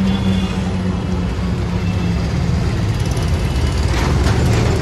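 Auto-rickshaw engine running steadily under way, heard from inside the open passenger cabin along with road and traffic noise, with a few rattles near the end.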